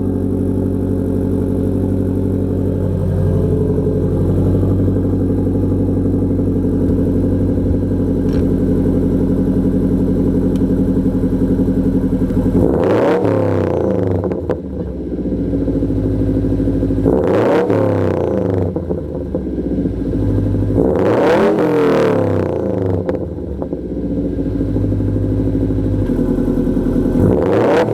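2012 Subaru WRX's turbocharged 2.5-litre flat-four engine running through a catback muffler-delete exhaust with only a resonator and no mufflers. It idles steadily, then from about halfway through it is revved up and let fall back four times, the last rev near the end.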